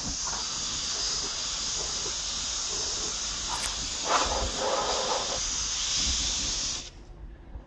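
Compressed-air blow gun hissing steadily as it blows dust and old grass out of a lawn tractor's engine compartment. There is a louder rush about four seconds in, and the air cuts off shortly before the end.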